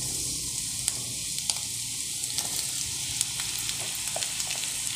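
Sliced onions sizzling in hot cooking oil in an aluminium wok as they begin to sauté: a steady hiss with scattered sharp pops.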